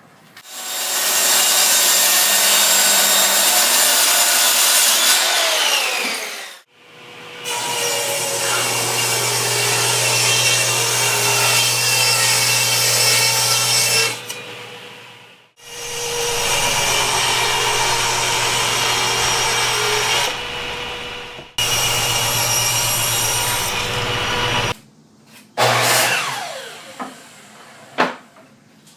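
A power saw cutting wood in four runs of several seconds each. Its motor winds down with a falling whine after some of the runs.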